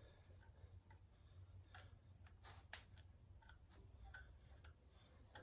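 Near silence, broken by faint, irregular small metallic ticks and clicks as a hand tap is turned to cut threads in a freshly drilled bolt hole on the pit bike, over a low steady hum.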